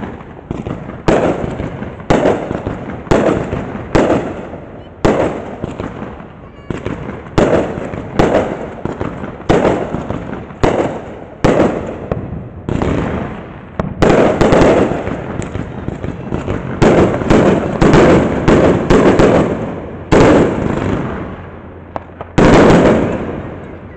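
Aerial fireworks exploding in a rapid, uneven series of loud bangs, about one a second, each trailing off in a long echo. The bangs come thickest and overlap around the middle, and one last big bang falls near the end.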